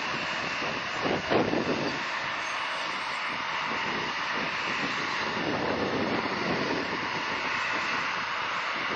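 Jet airliner engines running as an aircraft passes, a steady noise that is briefly louder about a second in.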